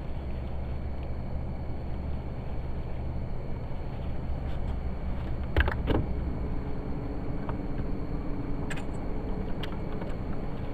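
Fishing rod and reel being worked on a spinnerbait retrieve over a steady low hum. About five and a half seconds in there is a sharp clatter, followed by a faint steady whir of the reel being cranked and a couple of light clicks.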